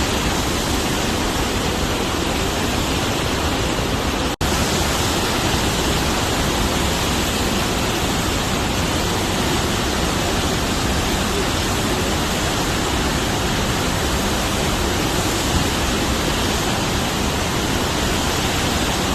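Massive flow of floodwater rushing out of a hydroelectric plant's spillway or outlet: a loud, steady, unbroken rush of water. It breaks off for an instant about four seconds in.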